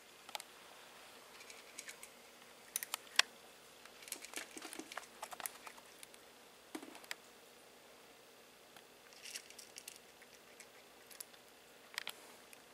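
A cat crunching dry kibble from a metal bowl: faint, scattered crunches and clicks in irregular clusters.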